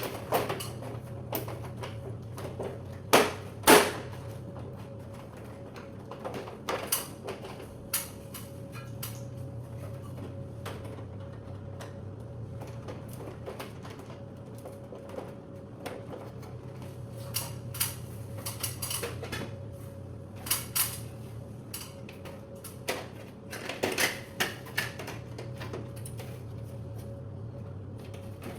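Scattered sharp clicks and taps of tools and parts being handled while an air-conditioner control panel is repaired, with two louder knocks about three seconds in and small clusters of clicks later on. A steady low hum with a faint steady tone runs underneath.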